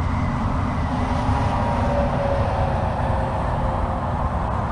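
Wind buffeting the boat-mounted camera's microphone: a steady, loud low rumble.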